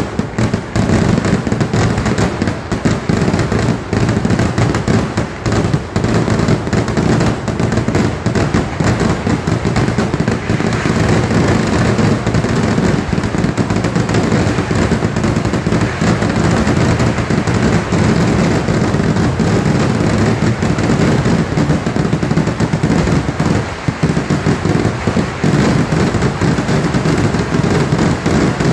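Kerala temple-festival fireworks (vedikettu): a dense, unbroken barrage of exploding firecrackers and aerial shells. The bangs follow so closely that they run together into one continuous, heavy din.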